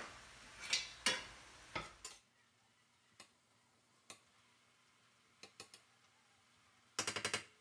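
A cooking utensil tapping and scraping against a stainless steel skillet while ground beef is stirred, as scattered single clicks with a quick run of about six taps near the end.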